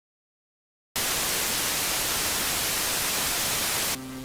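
Dead silence, then about a second in a loud burst of white-noise static, like an untuned analog TV, cuts in abruptly. About three seconds later it cuts off into a quieter, steady electrical hum with several fixed tones.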